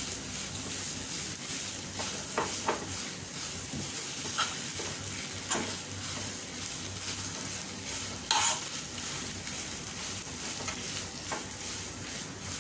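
Mashed potato masala sizzling in a nonstick frying pan while a spatula stirs and mashes it. Occasional clicks of the spatula against the pan break through the steady hiss, the loudest about eight seconds in.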